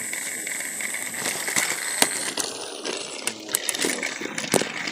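Small battery-powered toy train engines running on a wooden track: a thin high motor whine that fades out about halfway through, with quick clicks and clacks of wheels and plastic, sharper knocks about two seconds in and near the end.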